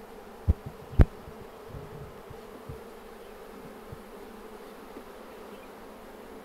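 Honey bees humming steadily from an open hive, with two sharp knocks about half a second and a second in and a few fainter taps after.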